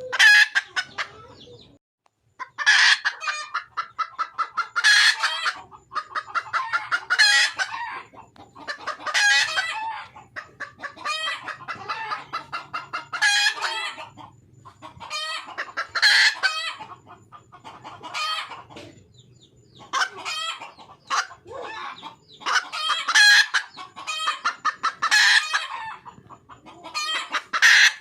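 Red junglefowl hen calling over and over: loud runs of rapid clucks, a burst about every two seconds. This is the hen's call to draw a cock.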